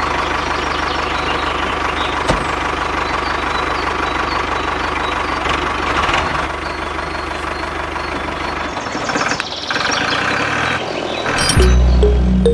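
Mini tractor's engine sound running steadily, with a low, even beat under it. Music comes in near the end.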